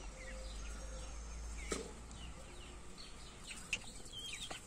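Birds chirping in short, falling calls over a steady low outdoor rumble, with a brief click about two seconds in.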